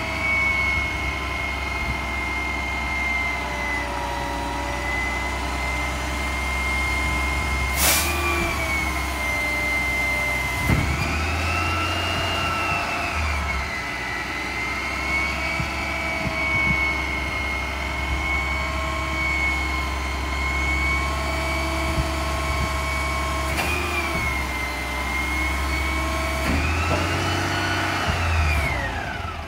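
Mack LEU front-loader garbage truck with a McNeilus body and Curotto Can, standing and running its packer: a diesel engine running under a steady high whine. Twice the engine revs up and the whine rises and falls in pitch, with a few sharp knocks along the way.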